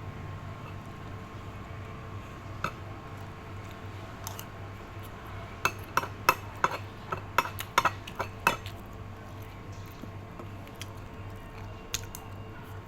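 Kitchen utensils clinking against dishes and a pan: a single clink, then a quick run of about a dozen sharp clinks in the middle and one more near the end, over a steady low hum.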